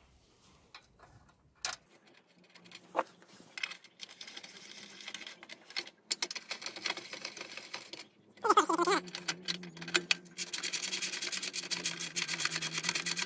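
Hand tool tightening the bolts of an engine's recoil starter cover: a few scattered clicks, then quick, even metallic clicking that grows denser in the last few seconds.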